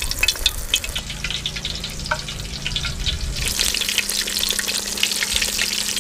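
Batter-coated eggplant slices (baingan pakoras) deep-frying in hot oil, a dense sizzling crackle. The crackle grows louder and busier about three and a half seconds in as more slices go into the oil.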